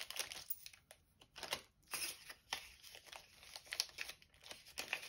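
Small resealable clear plastic bag crinkling and rustling in irregular bursts as a banknote is folded and slid inside and the bag is handled.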